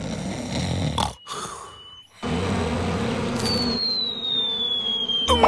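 Cartoon sound effects: a character snoring, then a steady buzzing of wasps from a wasp nest. Near the end a long falling whistle marks the nest dropping, and it ends in a sharp hit.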